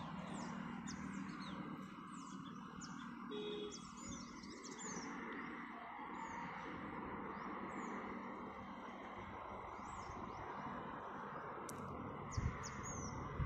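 Small birds chirping repeatedly in short, quick falling chirps over a steady outdoor background hiss, with a couple of short knocks near the end.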